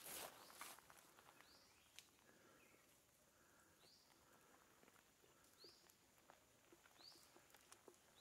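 A bird calling faintly, a short high note that curves upward, repeated about every one and a half seconds, with a few faint clicks.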